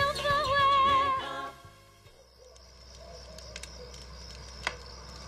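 The end of a French song: a held sung note with vibrato over instrumental backing, fading out about a second and a half in. After it comes a quiet background with a faint steady high tone and a few scattered clicks.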